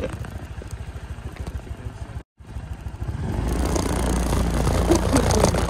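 Motorcycle being ridden along a road, its engine and road noise rumbling. The sound drops out briefly about two seconds in, then comes back as a louder, steadier low rumble.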